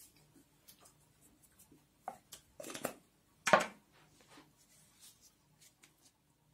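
Baked potatoes being peeled by hand in a metal tray: small crackles and rustles of the charred skin coming away, a louder rustle about two and a half seconds in, then a single sharp knock a second later.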